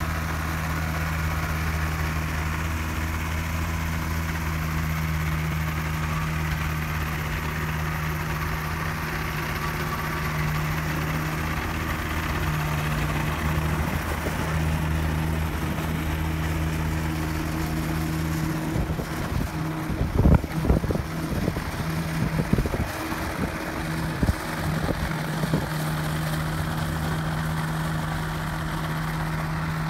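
Rotax 582 two-stroke twin of an ultralight idling steadily, driving a four-blade pusher propeller. Past the middle, a series of irregular low thumps cuts across the engine sound for several seconds.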